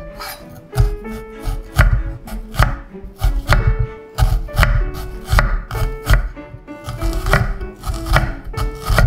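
Chef's knife slicing an onion thinly on a wooden cutting board: about a dozen strokes, each cut ending in a knock of the blade on the board, roughly one every 0.7 seconds.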